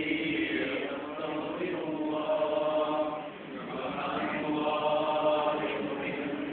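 Voices chanting in long, drawn-out phrases, with a short dip between phrases about three seconds in.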